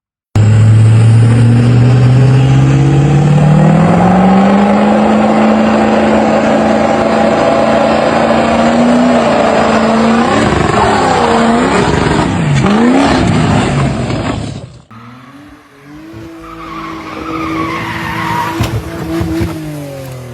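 A vehicle engine revs up and holds at high speed, its pitch swinging up and down toward the end. It cuts off suddenly, replaced by a quieter engine.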